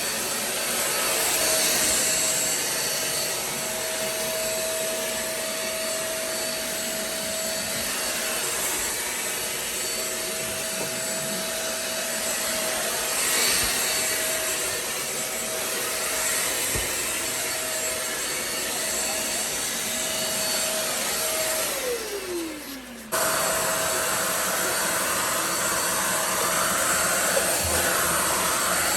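Deerma DX700 corded stick vacuum cleaner running with a steady motor whine. Near the end it is switched off, its motor winding down in a falling pitch, and about a second later it is switched back on at full speed.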